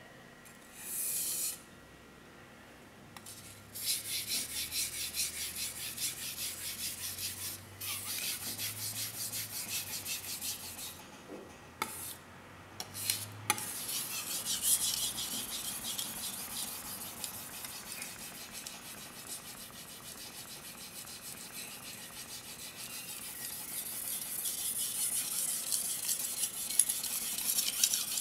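A gyuto blade being sharpened on an Okudo suita natural whetstone: repeated back-and-forth scraping strokes of steel on wet stone. There is a short break with a few clicks about halfway, then steady strokes that grow louder toward the end.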